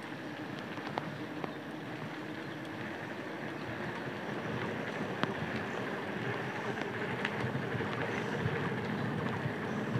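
Steady rush of a bicycle riding along a wet road in light rain: wind on the microphone and tyre hiss, with scattered small ticks, growing a little louder about halfway through.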